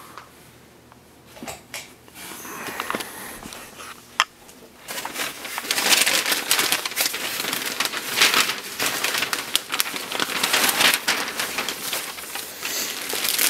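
Newspaper packing and plastic bags crinkling and rustling as they are handled and unwrapped by hand. The first few seconds are quieter, with scattered rustles and a sharp click about four seconds in; from about five seconds on the crinkling is loud and continuous.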